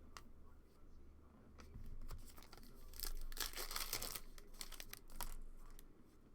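A trading card pack's foil wrapper being torn open and crinkled, with light clicks of cards being handled; the rustling is densest around the middle.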